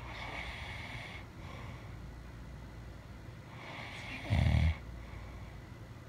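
A sleeping person snoring: a breathy breath at the start, then another about three and a half seconds in that ends in a short, loud, low snore, the loudest sound.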